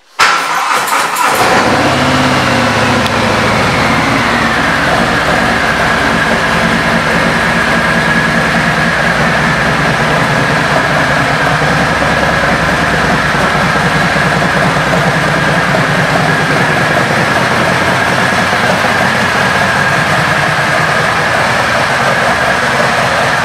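2019 Harley-Davidson Fat Bob's Milwaukee-Eight V-twin, fitted with an aftermarket exhaust and a Vance & Hines intake, cranks on the starter and fires about a second in. It settles from a fast idle down to a steady, loud idle within a few seconds.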